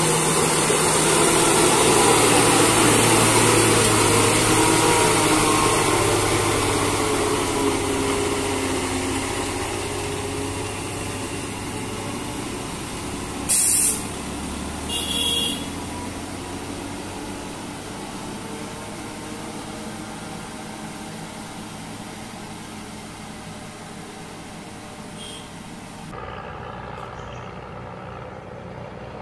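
A heavy lorry's engine running as it pulls along a winding hill road, gradually fading. About halfway, two short, loud, sharp high bursts come close together. Near the end a cut brings a quieter, steadier traffic sound.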